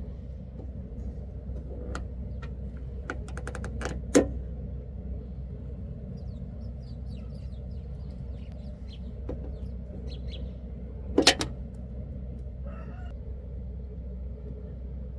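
Sharp plastic clicks and snaps as the side indicator lamp unit and its W5W bulb are handled, with two loud snaps about four and eleven seconds in. Under them run a steady low hum and faint bird chirps.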